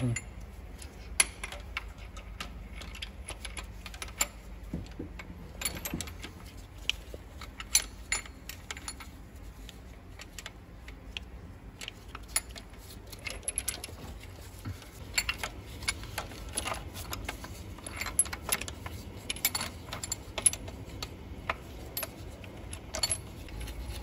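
Hand tools and metal engine parts clicking and clinking at irregular intervals during engine reassembly, over a low steady hum.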